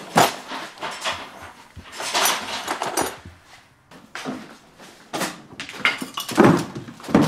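Metal drill bits and tools clattering and rattling as they are sorted in a toolbox drawer, followed by footsteps and handling knocks, with two louder thuds near the end.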